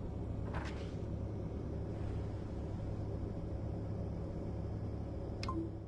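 Steady low rumble of a vehicle running, with two faint brief higher sounds, one about half a second in and one near the end.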